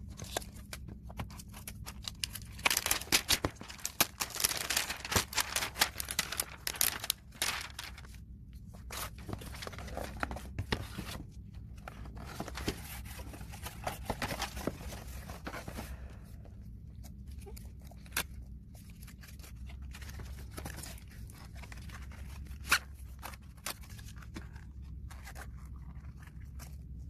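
Plastic sleeve and cardboard packaging crinkling and rustling as a new tablet and its accessories are unpacked by hand. The crinkling is densest from about three to eight seconds in, then lighter handling rustles follow, with one sharp click later on.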